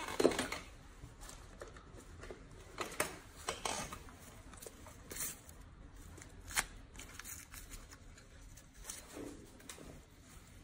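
Gloved hands crinkling a tissue and small plastic-and-paper packaging, a scatter of soft rustles and sharp little clicks.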